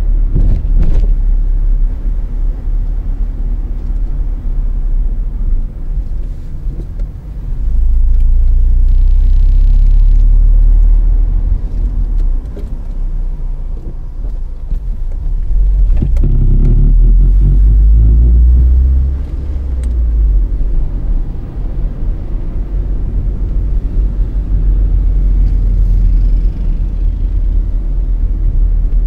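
Car driving at low speed, heard from inside the cabin: a steady low rumble of engine and tyres that swells louder twice for a few seconds, about eight seconds in and again about sixteen seconds in.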